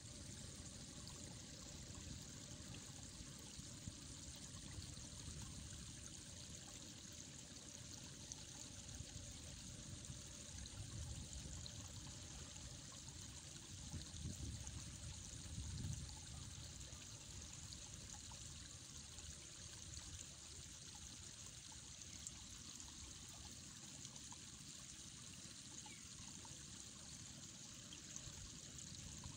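Faint, steady rush of river water at a rocky bank, with a low rumble swelling briefly about halfway through.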